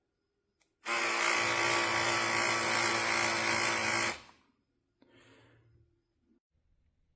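Small cordless mini rotary tool (HARDELL 4V) motor running at a steady speed for about three seconds, starting and stopping abruptly, followed by a fainter, shorter whirr.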